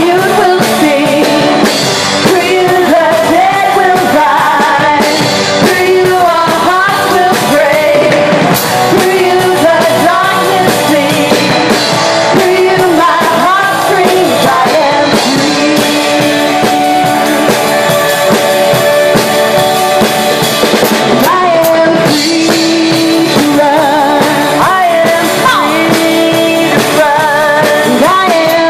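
Live praise-and-worship band playing a song: drum kit, electric guitar and bass guitar, with a voice singing over it throughout.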